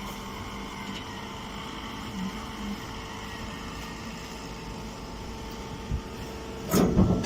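Hydraulic grass silage baler running with a steady hum. Near the end a louder, noisier clatter starts suddenly.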